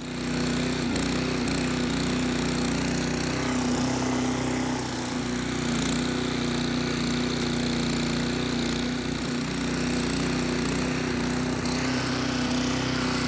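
Petrol-engined verticutter (lawn scarifier) running steadily as it is pushed across a mossy lawn, its blades cutting into the turf to loosen and pull out moss.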